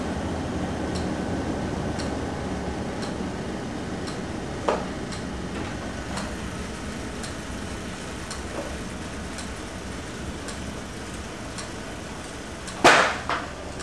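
A 16mm film camera running with a steady whir, and a faint tick about once a second. There is a sharp knock about a third of the way in, and a loud double clatter near the end.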